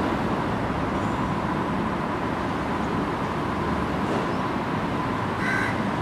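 Steady background noise with a faint steady tone running through it, and one short high call near the end.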